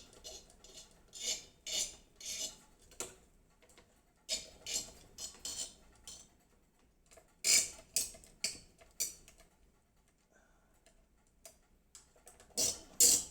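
Screwdriver working the mounting screws of an AMD Wraith Stealth stock CPU cooler: runs of short metallic clicks and scrapes, with pauses between them.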